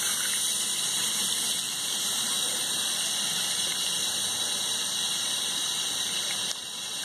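Tap water running in a steady hissing stream from a faucet, splashing over a fish fillet being rinsed by hand in a sink.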